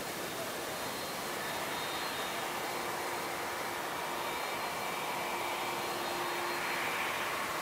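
Airbus Beluga A300-600ST's General Electric CF6 turbofans running: a steady rush of jet noise with faint high whining tones, growing a little louder near the end.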